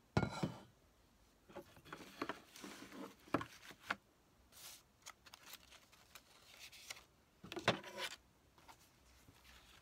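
Paper and craft materials being handled on a desk: irregular rustles and scrapes with a few knocks, the loudest right at the start and another near eight seconds in.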